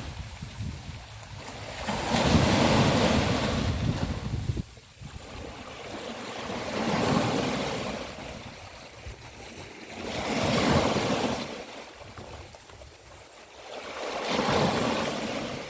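Sea waves breaking on a beach and washing back, in swells of noise about every four seconds.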